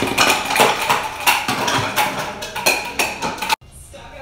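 Hollow plastic toy bowling pins knocked over, clattering and rolling on a wooden tabletop in a rapid run of knocks. The clatter breaks off suddenly about three and a half seconds in, leaving only faint sound.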